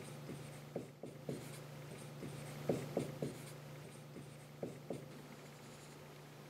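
Dry-erase marker squeaking across a whiteboard in short strokes, coming in a few quick clusters, over a faint steady low hum.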